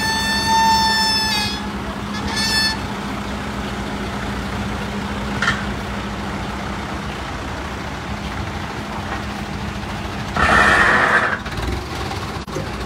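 Forklift engine running steadily at idle, with a vehicle horn sounding: a long blast at the start and a short one about two seconds later. About ten seconds in comes a loud, brief rushing hiss.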